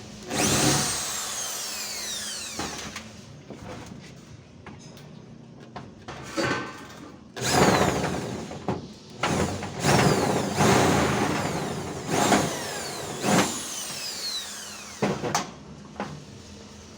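Hand-held electric power tool run in repeated short bursts, about nine times; after each start its whine glides down in pitch.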